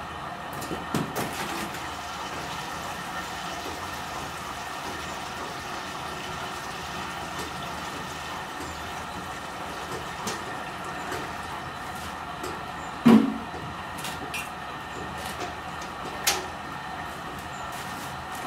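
Steady mechanical hum of a running machine, with a few knocks and clatter from handling gear near the start, one loud thump about 13 seconds in and a sharp click a few seconds later.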